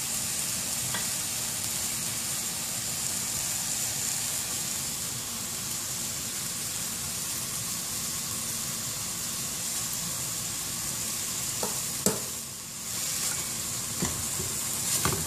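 Beef cubes sizzling steadily as they brown in oil in a heavy pot. Near the end come a few sharp clicks of tongs against the meat and pot as the pieces are turned.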